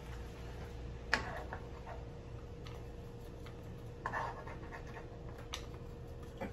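A measuring spoon clicking and scraping against a pan as Dijon mustard is scraped off into the sauce: a sharp click about a second in, a short scrape around four seconds and another click a little later, over a steady low hum.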